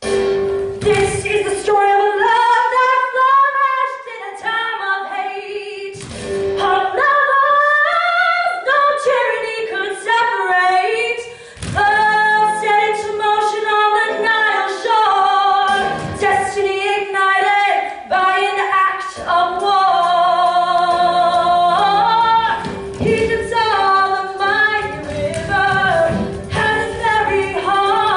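Musical-theatre singing: a woman's voice holding long notes that slide up and down, with other voices joining, over a recorded orchestral backing track.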